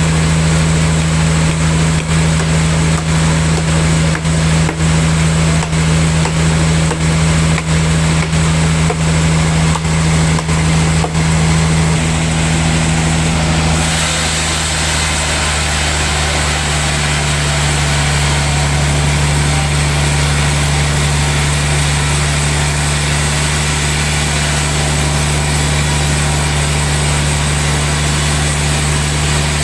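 Engine-driven sawmill machinery running steadily with a low drone. About halfway through, the tone of the drone shifts and a higher hiss joins in and holds.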